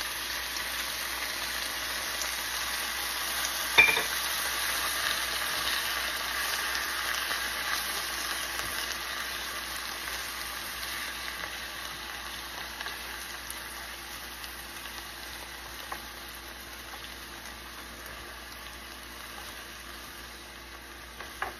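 Ramen noodles and cabbage sizzling in a frying pan as a soy-based sauce is poured in and the noodles are stir-fried with chopsticks: a steady frying hiss that swells a few seconds in and slowly dies down. A single sharp knock sounds about four seconds in.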